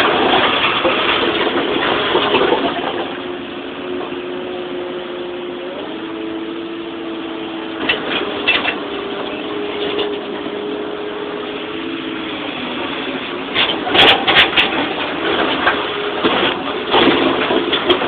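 Excavator's diesel engine and hydraulics working as the arm digs and swings, with a steady whine that steps up and down in pitch as the hydraulics are loaded. Sharp knocks and clatter of dirt and rock come at the start, about eight seconds in, loudest about fourteen seconds in, and again near the end.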